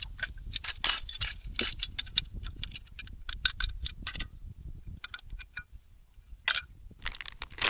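Small metal and glass items clinking and tapping as camping cookware and a small stove are handled, a quick run of clinks for about four seconds, then a few scattered taps.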